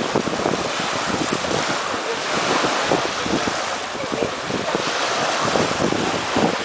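Choppy waves washing and splashing in shallow water, with wind buffeting the microphone in gusts.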